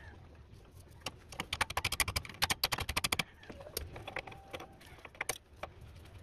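Ratchet wrench clicking in a quick, even run of about nine clicks a second for roughly two seconds, turning a bolt on the steering rack, followed by a few scattered clicks of the tool.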